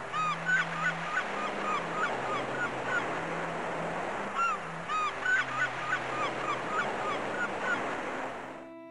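A flock of gulls calling, many short cries in quick succession over a steady rush of background noise, with a brief lull about three seconds in. The sound fades out shortly before the end.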